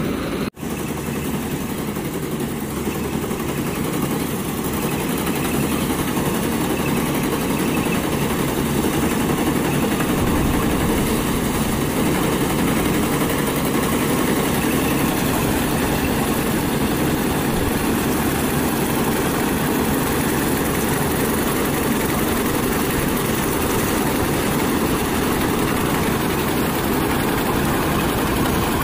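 Standard self-propelled combine harvester running steadily as it cuts and threshes paddy, its engine and machinery making a continuous mechanical noise. The sound cuts out for an instant about half a second in.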